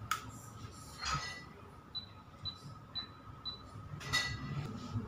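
Cooking oil poured from a bottle into an empty wok, with a few knocks and clinks of the bottle and pan being handled. In the middle, four short high beeps come about two a second.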